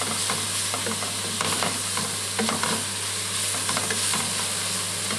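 Julienned onions and sliced chorizo sizzling in a stainless steel pot while a wooden spatula stirs them, with irregular scrapes and taps against the pan. The onions are just starting to soften, early in caramelizing.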